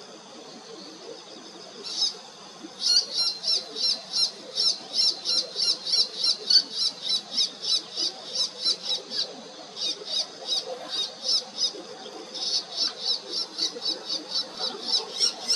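Bull-headed shrike giving its territorial call: one high note about two seconds in, then long runs of rapidly repeated high notes, about three or four a second, broken by two short pauses.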